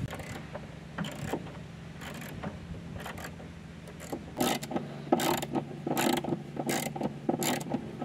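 Hand socket ratchet clicking in short strokes as screws are driven in. The strokes are spaced out at first and come quicker and louder in the second half.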